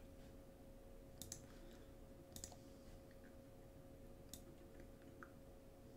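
Near silence with a few faint computer mouse clicks, two pairs in the first half and one more past the middle, over a faint steady hum.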